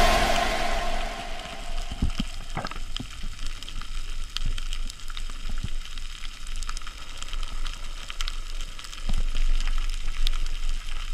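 Underwater reef ambience: a dense, steady crackle of small clicks over a low hum, with a few soft knocks scattered through it.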